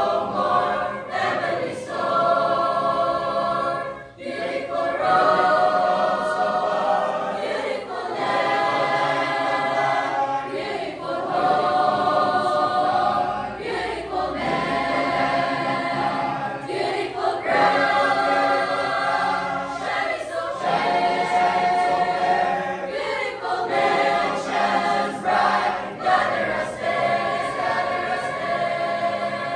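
Mixed youth choir of boys and girls singing a cappella, phrase after phrase, with a short breath pause about four seconds in.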